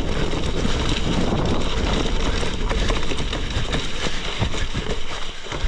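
Gravel bike rolling fast down a loose dirt and rock track: tyres crunching over stones and the bike rattling, with many small clicks and knocks through a steady rush of wind on the microphone.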